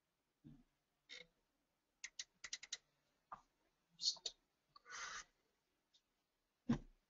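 Faint clicking and tapping at a computer, mouse and keyboard: a quick run of about five sharp clicks two to three seconds in and a few scattered taps. A short rush of noise comes about five seconds in and a dull thump near the end.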